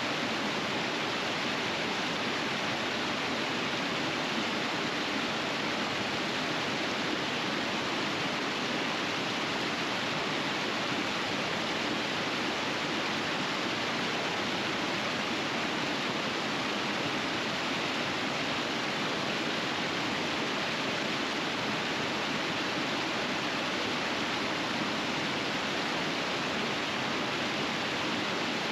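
River rapids in winter rushing steadily, a constant even roar of fast water with no let-up or separate events.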